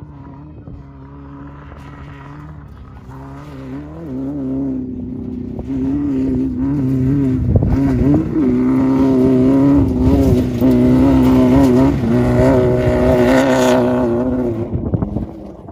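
Class 11 Volkswagen Beetle desert race car's air-cooled flat-four engine running under load on rough dirt, its note dipping and rising as the revs change. It grows louder as the car approaches, is loudest as it passes close, and falls away near the end.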